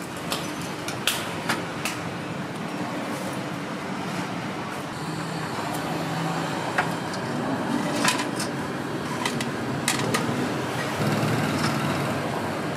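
Steady street traffic noise with sharp clinks of cooking utensils at a street-food stall, a handful of times.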